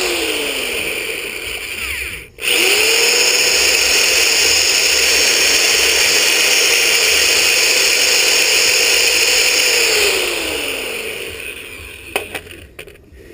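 Electric drill running at speed with a steady whine. It winds down, stops briefly and is triggered again about two seconds in, runs steadily, then spins down near the end, followed by a few light clicks.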